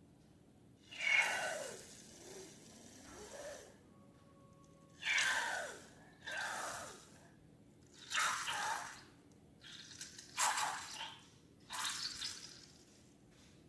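Wet, squelchy liquid sounds from slime ingredients being squeezed and poured: about eight short bursts one to two seconds apart, several falling in pitch as they go.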